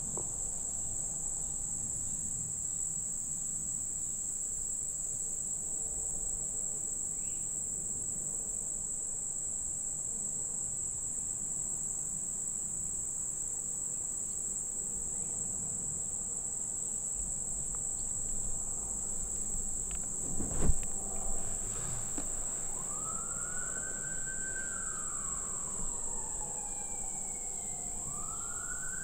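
Steady high-pitched insect chorus that runs without a break. About 20 seconds in there is a single sharp knock, the loudest sound, and from about 23 seconds a siren wails, rising, holding, sliding down and rising again near the end.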